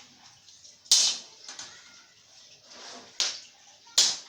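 Three sharp knocks at uneven intervals, about a second in, just after three seconds and at four seconds, each with a short ringing decay.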